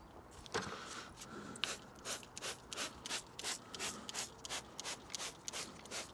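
Trigger spray bottle squirting wheel cleaner onto a car wheel in quick, short sprays, about four a second, soft and hissing.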